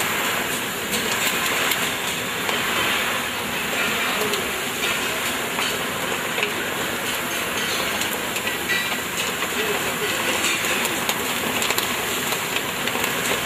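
Grain roasting machine running with a load of grain tumbling inside, a steady rattling hiss full of small clicks and crackles.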